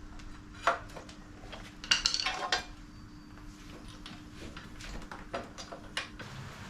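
Metal tools and wheel hardware clinking and knocking while a motorcycle wheel is refitted: one sharp clink about a second in, a quick cluster of clinks around two seconds, and a few lighter ticks near the end.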